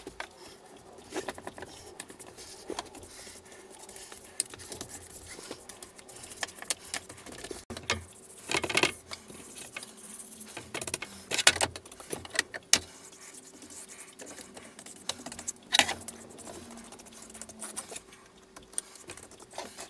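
Scattered light clicks and knocks of handling as an ash wooden bar clamp is brushed with boiled linseed oil, a few knocks louder than the rest, over a faint steady hum.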